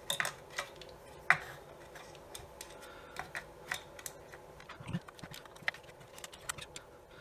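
Irregular small clicks and taps of hard plastic parts being handled and worked apart, with one sharper click about a second in.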